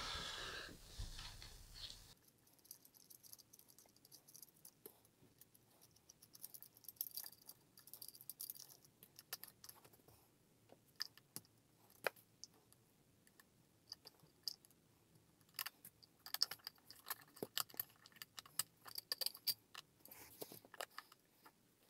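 Faint, scattered small clicks and clinks of metal and plastic as a wall socket is unscrewed and taken off its metal back box.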